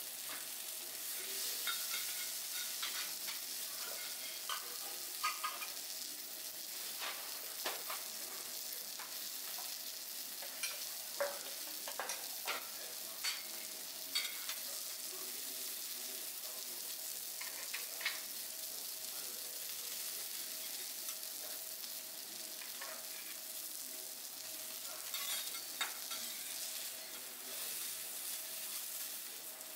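Food sizzling on a teppanyaki iron griddle, a steady hiss, with scattered sharp clicks and taps on the hot plate.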